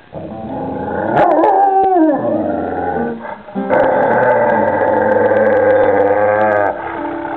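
A dog howling: a few sliding, falling cries, then one long wavering howl lasting about three seconds, with music playing underneath.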